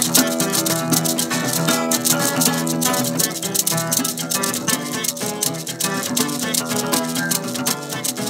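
Several acoustic guitars strummed together, with a handheld tube shaker rattling a steady, quick rhythm over them.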